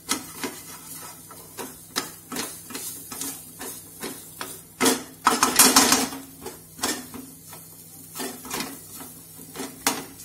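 Spatula scraping and knocking against a non-stick frying pan as a thick onion-tomato masala is stirred, in a string of short strokes with a louder burst of scraping about five seconds in. The spice powders are being fried until their raw smell goes.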